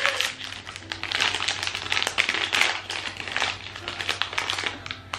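Plastic blind-box bag crinkling and crackling as it is torn open and handled by hand.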